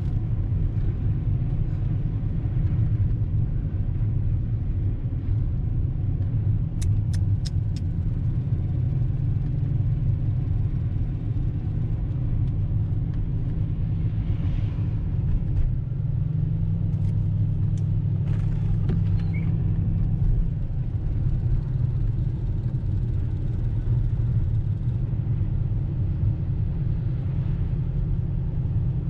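V8 engine running steadily with a low rumble, holding an even speed with no revving, and a few faint clicks about seven seconds in.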